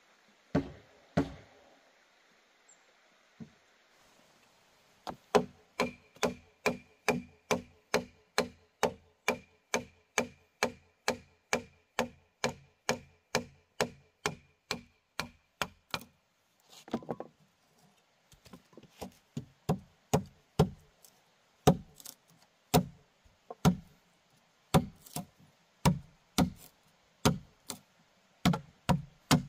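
Repeated blows of a tool on wood. A quick, even run of about three strikes a second with a faint ring, then slower, uneven strikes about a second apart.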